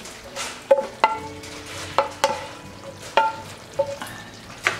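A wooden spoon scraping and knocking against a nonstick frying pan about seven times, each knock setting the metal pan ringing briefly, as the garnish is scraped out. A soft sizzle of cooking food runs underneath.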